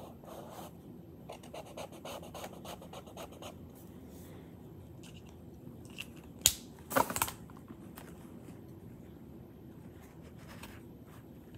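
Felt-tip marker rubbing across sketchbook paper in quick, scratchy colouring strokes for about the first three and a half seconds. About six and a half seconds in comes a sharp click, then a short, louder clatter just after.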